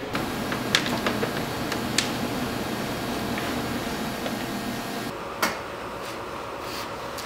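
Scattered light clicks and taps of hands working on a car door's inner hardware and plastic vapour barrier, over steady shop room noise, with a sharper click about five seconds in.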